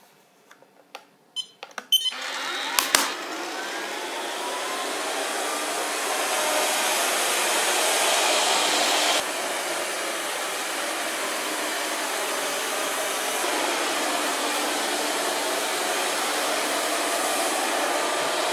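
Robot vacuum cleaner starting up: a few clicks and short tones, then its motor spins up with a rising whine about two seconds in and runs with a steady whir. A couple of sharp clicks come shortly after it starts, and the noise drops a little about nine seconds in.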